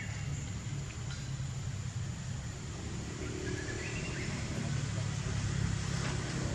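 Steady low outdoor background rumble, with a short rising chirp at the start and another about four seconds in.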